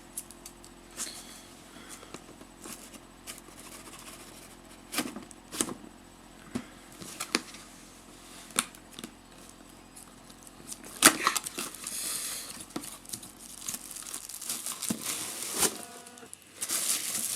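Plastic wrapping on a trading-card box being torn and crinkled by hand, with scattered small clicks and taps. Longer stretches of crinkling come about eleven seconds in and again near the end.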